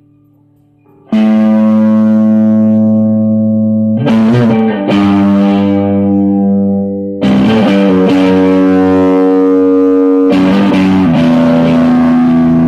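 Electric guitar played through an amplifier. A faint steady hum gives way, about a second in, to a loud chord struck and left to ring, followed by new ringing chords every two to three seconds.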